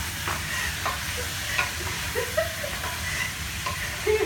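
Pork frying in hot oil with onion and garlic, a steady sizzle, while it is stirred with a wooden spoon that knocks and scrapes against the pot now and then. The pork is at the searing stage, before soy sauce and vinegar go in.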